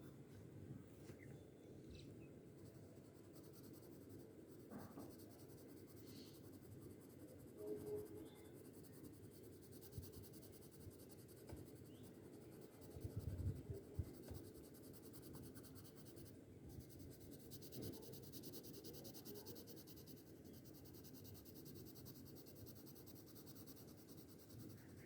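Faint scratching of colouring strokes on paper as the drawing is shaded in, with a few soft low bumps about halfway through.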